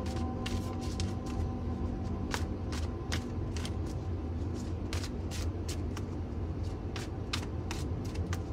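A deck of tarot cards being shuffled by hand: irregular short snaps and flicks of the cards, over a steady low hum.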